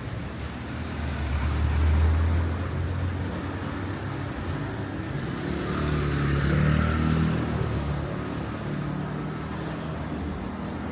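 Street traffic: motor vehicles passing on a city street, with an engine rumble that swells about two seconds in and again around six to seven seconds in, when the engine note shifts in pitch under tyre hiss.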